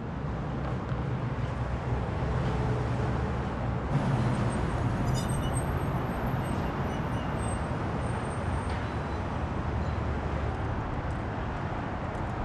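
City street traffic: a steady rumble of cars running along the road, with a thin high whine for a few seconds around the middle and a brief louder sound about five seconds in.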